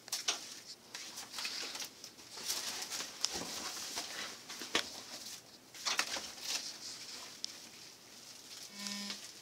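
Plastic wrap and foam packing rustling and crinkling as it is handled and pulled away from a metal part in a cardboard box, with many small crackles. A brief low hum sounds near the end.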